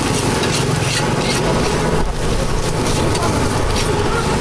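A metal spatula scrapes and knocks against a steel wok as fried rice with cabbage and greens is stir-fried, giving repeated short clanks over a steady low rumble.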